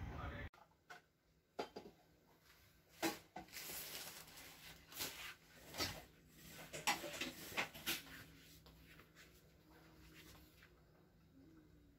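Scattered light knocks, clicks and rustles of hands handling a bare LCD panel and a strip of polarizer film, over a faint steady hum. A short stretch of rustling noise cuts off abruptly about half a second in.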